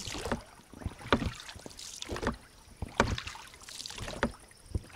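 Scattered soft knocks and rubbing from an inflatable PVC boat, about half a dozen at uneven intervals over a faint hiss.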